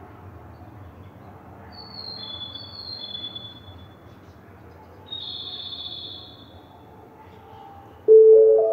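Station platform chime starting about eight seconds in, a few bell-like notes stepping upward, the alert that comes before the announcement of a train passing through. Before it, a low steady outdoor background with two short high chirps.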